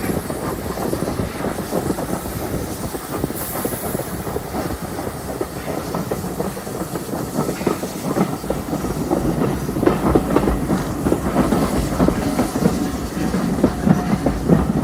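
Heritage steam-hauled railway carriage running along the track: a steady rumble with rattling and the clickety-clack of wheels over rail joints, getting busier and louder in the second half. There is a brief hiss about three seconds in.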